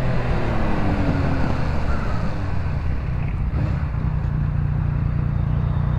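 Honda Hornet motorcycle engine running under way, its note falling over the first couple of seconds as the bike slows, with steady wind rush over the handlebar-mounted camera.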